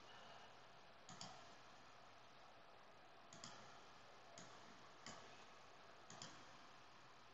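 Faint computer mouse clicks, about five spread over several seconds, a couple of them doubled, against near silence.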